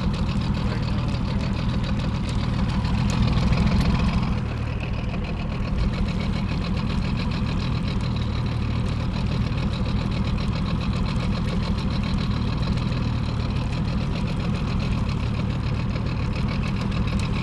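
Boat motor running steadily at trolling speed, a little louder for a moment about three seconds in.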